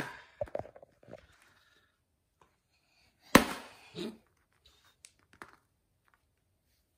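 A plastic ddakji tile slapped down hard onto a foam play mat: one sharp slap about three and a half seconds in, with a few light clicks of tiles before and after it.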